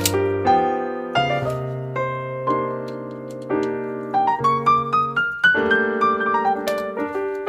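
Background piano music: quick runs of notes going up and down over held bass notes.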